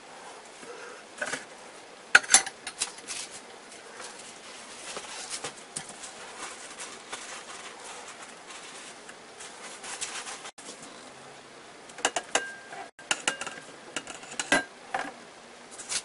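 Raw king prawns being handled by gloved hands in a stainless steel bowl and on paper towel: scattered clicks and light knocks against the metal. The loudest come about two seconds in, with another run of taps between about twelve and fifteen seconds in.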